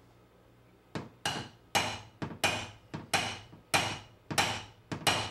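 A hand hammer strikes a SlapperTapper paintless dent repair tool held against a car door's sheet metal, knocking down a raised crown along the door's ridge. It starts about a second in: a steady run of about seven sharp strikes, a little under two a second, each ringing briefly, with a few lighter taps between them.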